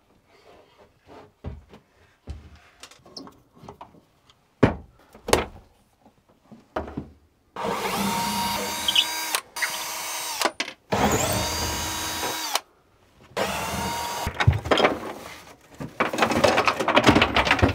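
A few scattered knocks and clicks of handling, then a power drill running in bursts, about five seconds at a time with brief stops, as fittings are unscrewed to take a piece of the boat's interior apart.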